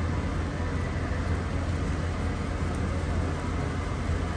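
Steady low background hum with an even hiss and no distinct events.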